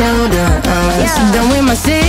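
Background music: a melody that glides between notes over a steady beat.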